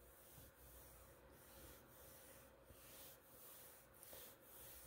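Near silence: faint room tone with a light hiss.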